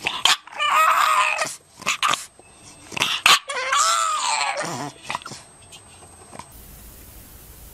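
English bulldog puppy vocalizing: two drawn-out, wavering calls, one about half a second in and a longer one that rises and falls around the four-second mark, with a few short knocks between them.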